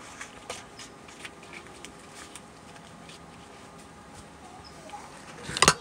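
Light plastic clicks and taps as an oil funnel is pulled out and the engine's oil filler cap is put back on and turned, followed near the end by a louder quick clatter of knocks.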